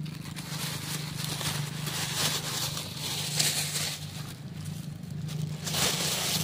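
Intermittent rustling and crackling as dry ferns and plastic toy train track pieces are handled, in a few short bursts over a steady low hum.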